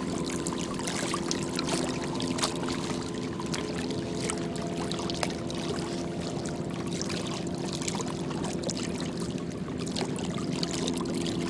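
Small river waves lapping and splashing against a muddy bank, over a steady low drone.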